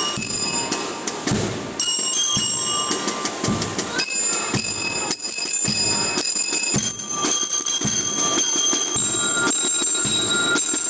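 Marching band playing: bell lyres (marching glockenspiels) ring out a melody of bright, changing notes over a regular beat from side drums and bass drum.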